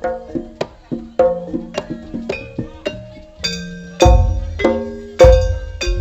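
Javanese gamelan-style music: struck metal keyed instruments play a quick run of ringing notes, about two to three strokes a second. Three heavy, deep strikes come in near the end.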